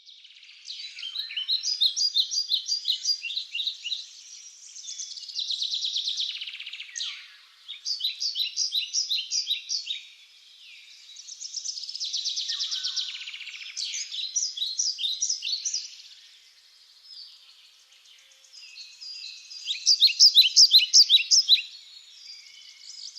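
A songbird singing in phrases a few seconds long: runs of rapid repeated chirps alternate with fast buzzing trills, with short pauses between phrases. The loudest phrase comes near the end.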